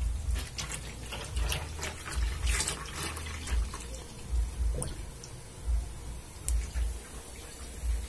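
Water running and splashing in a washing machine tub, with irregular dull low thumps.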